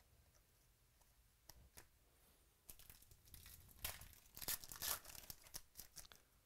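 A 2016-17 Excalibur Basketball trading-card pack being torn open. A couple of faint clicks come first, then a little under three seconds in a run of sharp rips and crinkles of the wrapper.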